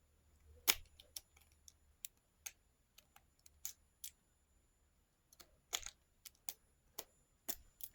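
Lock pick rake and tension tool working in a lock's keyway: a dozen or so sharp, irregularly spaced clicks as the pins are raked.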